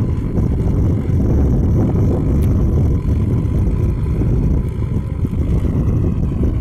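JCB backhoe loader's diesel engine running steadily, a loud low rumble.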